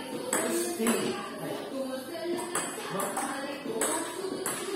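Background music with held melodic notes and a steady beat of bright, shaken high percussion.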